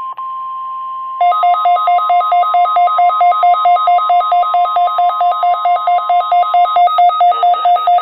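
NOAA Weather Radio 1050 Hz attention tone, a steady single tone, with a weather-alert receiver's alarm triggered by it and coming in about a second in. The alarm is a louder, rapid two-tone warble that repeats evenly. The steady tone stops near the end while the alarm keeps sounding: this is the weekly test of the receiver's alarm.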